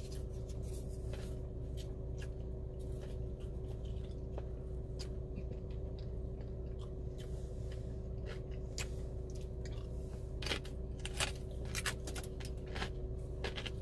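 A person chewing crunchy tortilla chips with dip, with scattered crisp crunches that come more often in the second half, over a steady low hum.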